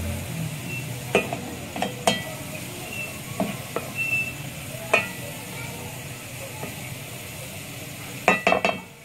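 Beef mince with chopped garlic sizzling as it browns in a metal pot, stirred and scraped with a slotted spatula. The spatula knocks sharply against the pot now and then, with a quick cluster of knocks near the end.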